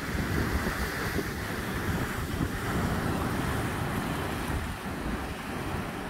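Ocean surf washing onto the shore in a continuous rush, with wind buffeting the microphone underneath.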